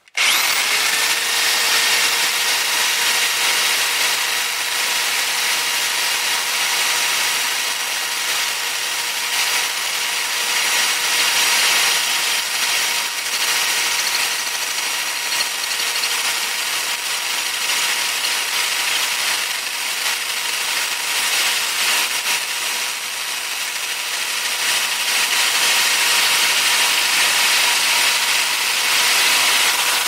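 A 1/2-inch regular (non-hammer) electric drill running steadily, a 1/2-inch carbide masonry bit boring through the far shell of a hollow concrete block wall. It starts suddenly, with a steady motor whine over the scraping of the bit against the concrete.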